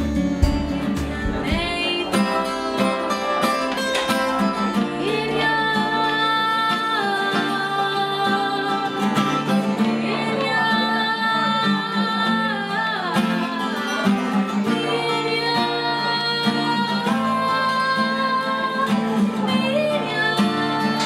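A woman singing long held notes with acoustic guitar accompaniment.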